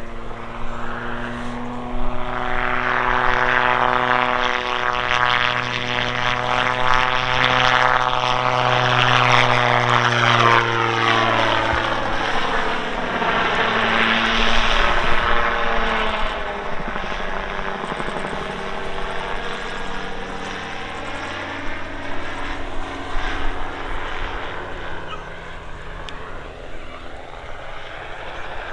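A Calidus autogyro's Rotax 914 engine and pusher propeller droning as it flies a display pass. It grows loud, then drops in pitch about halfway through as it goes by, and fades away.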